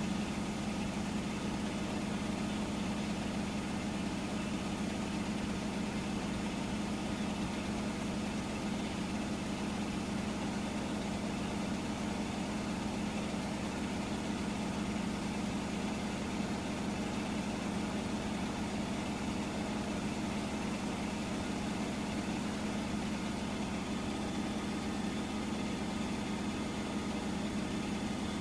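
Hotpoint washing machine running with a steady, unbroken motor hum that holds one even pitch throughout.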